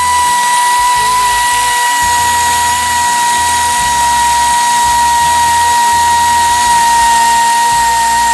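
A power tool's motor running with a steady high whine at an even speed, most likely driving a bolt through a long extension.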